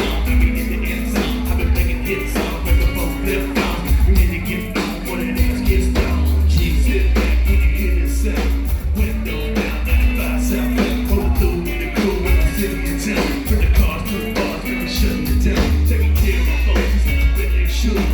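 Live band playing a loud song over a PA: drums keep a steady beat under heavy bass and sustained instrument notes.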